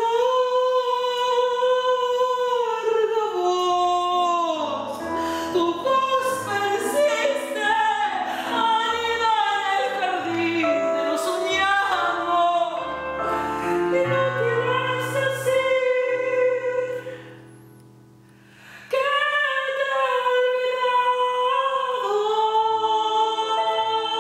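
A woman singing: a long held high note, then a quick run of changing notes over lower notes beneath. The voice breaks off for about two seconds near three-quarters through, then returns on another held note with vibrato.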